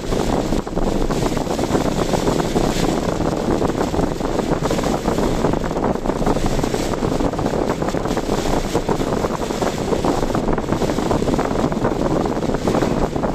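Steady rushing noise of strong typhoon wind, mixed with the road noise of a car being driven.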